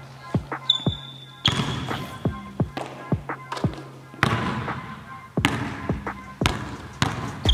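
Background music over a basketball bouncing on a hardwood gym floor, a series of sharp bounces.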